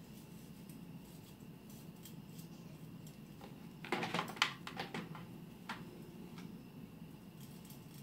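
Hair flat iron being picked up and handled: a quick cluster of clicks and rattles about four seconds in, and one more click nearly a second later, over a faint steady room hum.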